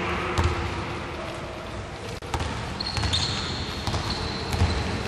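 Basketball being dribbled on a hardwood court, bouncing in repeated low thumps amid players' footsteps, with a brief high squeak of a shoe on the floor about three seconds in.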